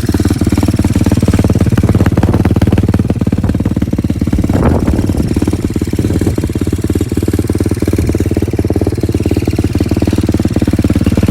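Small pit bike engine running steadily close to the microphone, with fast even firing pulses, and a brief rise about four and a half seconds in.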